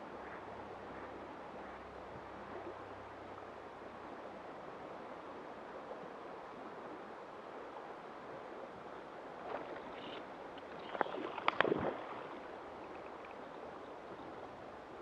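Steady rush of a fast-flowing river current, with a short cluster of sharp clicks and knocks about eleven seconds in.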